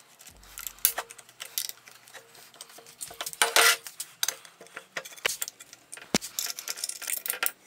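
Metal clinks and knocks from hand work on a chainsaw cut-off attachment: an Allen key turning a bolt, then a painted metal blade guard being handled and fitted. A longer scraping rattle comes about three and a half seconds in.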